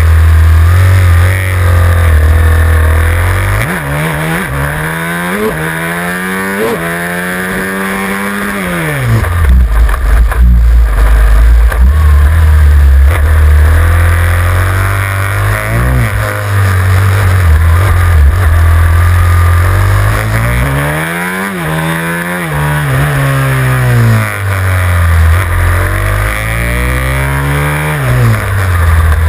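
Supermoto motorcycle engine, heard from the bike's own tail, revving up through the gears in long rising climbs and then dropping off as it slows for corners, again and again, over a steady low rumble.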